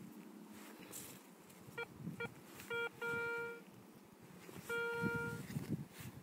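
Garrett Ace 250 metal detector sounding its target tone: two short beeps, then a short beep and a longer held tone, and another held tone near the end. It is signalling a metal target in the dug soil, a penny.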